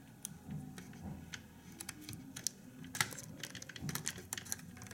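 Light, irregular clicks and taps of fingers pressing and seating the metal retaining frame of a BMW E34 instrument cluster's LCD, several a second and busiest in the second half.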